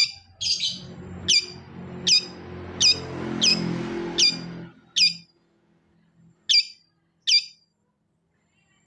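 Long-tailed shrike (cendet) giving a series of short, sharp, downward-sweeping calls, about one every 0.7 seconds, which stop near the end. A low hum runs underneath for the first half.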